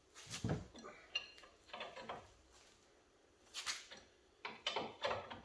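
Scattered metal clinks and clatters of hand tools, a wrench and socket, working a nylon lock nut loose; about five short bursts, spread irregularly.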